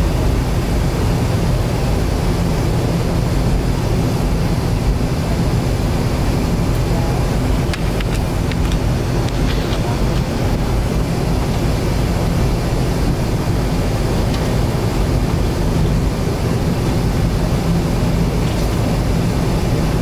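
Cabin noise of an Avro RJ100 taxiing: the steady low hum of its Lycoming LF507 turbofan engines at taxi power, heard from inside over the wing, with a few faint clicks about eight seconds in.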